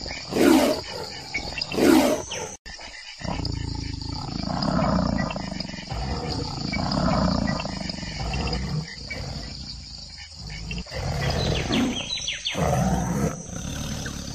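Tiger snarling and growling: two loud, sharp snarls about half a second and two seconds in, then long, deep growls that swell and fade, with more snarls near the end.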